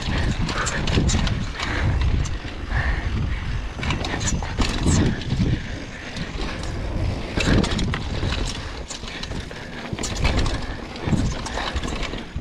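Mountain bike riding down a dirt singletrack: a steady rumble of tyres and wind on the microphone, with frequent knocks and rattles from the bike over bumps.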